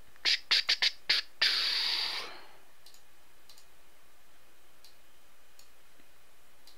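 A quick run of about five sharp clicks, then a brief rush of noise, followed by a few faint, scattered clicks.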